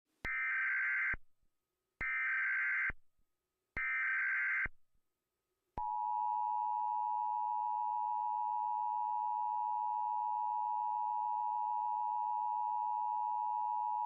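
Emergency Alert System alert opening: three short bursts of warbling digital header tones about a second apart, then the steady two-tone attention signal from about six seconds in. It marks the start of a national Emergency Action Notification.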